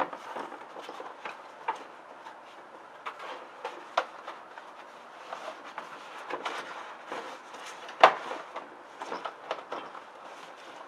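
An empty cardboard beer case being shifted and pressed into place on a bicycle's rear rack: scattered knocks, taps and rustles, the loudest knock about eight seconds in.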